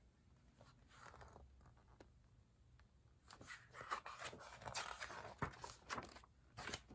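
Near silence, then from about three seconds in, soft irregular rustling and crinkling of a large picture book's paper page being turned and handled.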